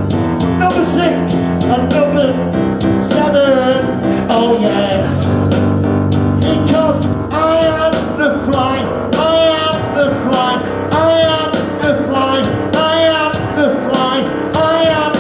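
A man singing a song live into a microphone over instrumental backing with guitar.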